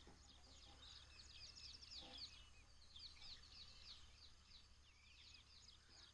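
Near silence with faint, rapid chirping of small birds, many quick chirps in a row.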